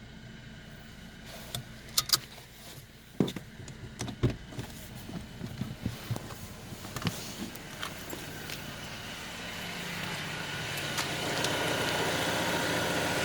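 Volvo T3 VEA petrol engine running with a steady whine from its balance shaft module, still there after the module was replaced. A scatter of sharp clicks and knocks sounds in the first half, and the overall noise rises over the last few seconds.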